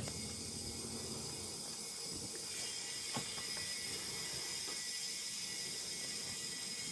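Steady hiss of air while the chipper's tire is being inflated and the bead has not yet sealed, with one click about three seconds in.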